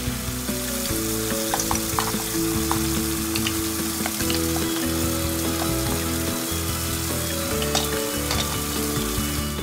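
Water running from a toy sink's faucet and splashing over plastic toy vegetables as they are rinsed, a steady hiss with light plastic clicks and knocks.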